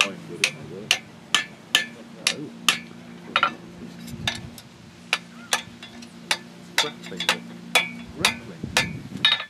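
Blacksmith's hammer striking red-hot steel on an anvil in a steady rhythm, about two sharp blows a second, with a couple of brief pauses.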